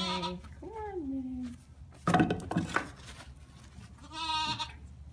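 A goat bleating: one call at the start and another about four seconds in, with a shorter gliding call about a second in and a brief noisy burst about two seconds in.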